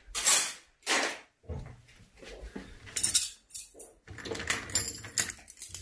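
Metal cutlery rattling in a kitchen cutlery drawer as utensils are taken out, in several short clatters.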